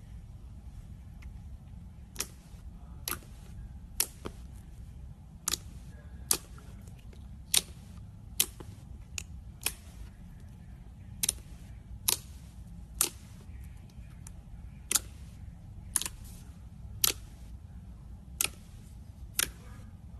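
Slime being handled and popping: a series of sharp clicks, roughly one a second, over a low steady hum.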